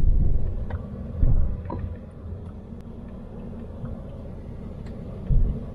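Road and engine rumble of a small Toyota Yaris sedan on the move, heard from inside the cabin. The low drone is steady, with a couple of louder low thumps about a second in and again near the end.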